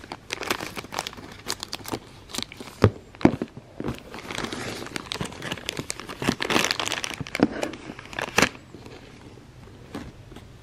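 A shiny plastic toy wrapper crinkling and crackling as it is squeezed and handled to get a small figure out, with a string of sharp crackles and a busier stretch of rustling midway.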